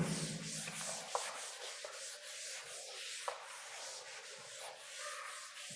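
A board duster rubbing chalk off a chalkboard: a soft, steady scrubbing hiss with a few faint knocks.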